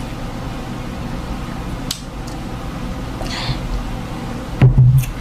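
Eating and food-handling noises from a seafood boil meal at a table, over steady room hiss, with a brief click about two seconds in and a dull low thump near the end.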